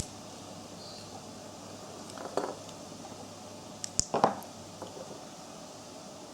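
Faint room tone broken by a few light clicks and small knocks as flashlights are handled: one click at the start, a soft knock about two and a half seconds in, and a sharp click followed by a knock around four seconds in.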